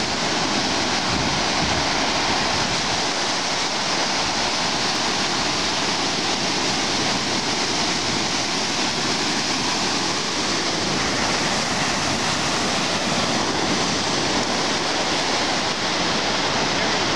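Steady rushing of surf breaking and washing up on a sandy beach.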